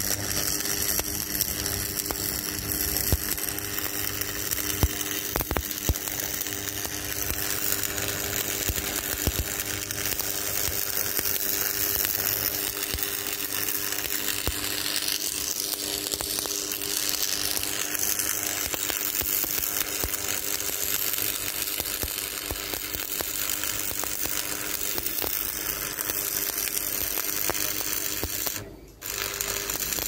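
Electric arc welding on steel reinforcing bar: the arc gives a steady, dense crackling hiss, with a faint steady hum underneath and a brief break near the end.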